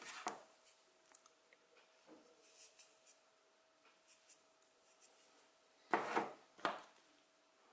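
Faint rubbing and rustling of hands working a small piece of crocheted acrylic yarn and its tail with metal tweezers, with two short, louder rustles about six seconds in. A faint steady hum runs underneath.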